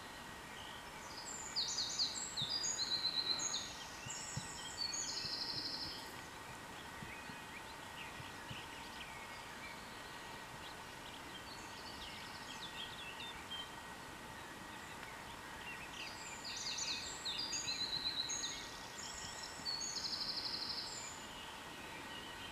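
A songbird singing two long, rapid, high-pitched song phrases about fifteen seconds apart, each a few seconds long and ending in a trill, with a few fainter calls between them.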